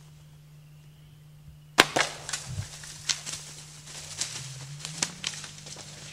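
A bow shot at a black bear: one sharp, loud crack about two seconds in, then a rapid run of snaps and crashes as the hit bear bolts off through dry brush and dead leaves.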